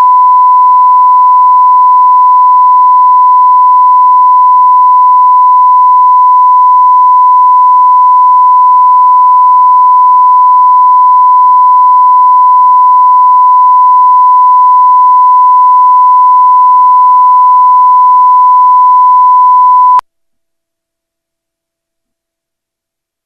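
Steady 1 kHz reference tone that goes with broadcast colour bars at the head of a video master, held at one pitch and very loud, cutting off suddenly near the end.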